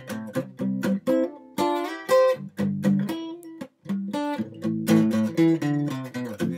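Acoustic guitar playing a country-style intro: strummed chords in a steady rhythm with some picked higher notes. It stops for a moment a little past halfway, then the strumming picks up again.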